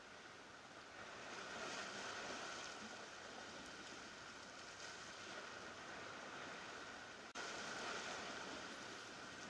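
Surf washing against the rocks at the water's edge: a steady hiss that swells about a second in and again after about seven seconds.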